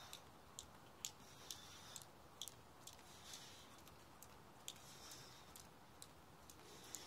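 A Survival and Cross jump rope ticking against a flagstone patio on each turn, about two light clicks a second in a steady rhythm.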